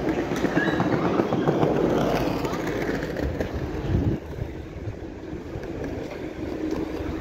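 Street traffic: a motor vehicle's noise loudest over the first four seconds, then dropping away sharply.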